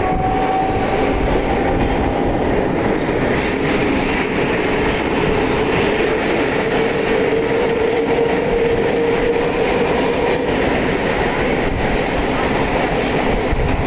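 Electric multiple unit (EMU) suburban train running, heard from on board: a steady rumble of wheels on the rails, with a faint humming tone through the middle.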